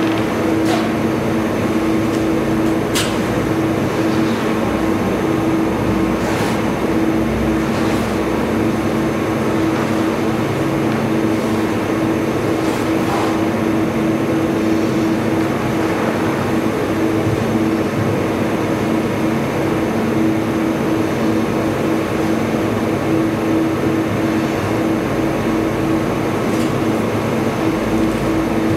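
Steady mechanical hum with a low droning tone, like machinery running nonstop, with a few faint ticks in the first several seconds.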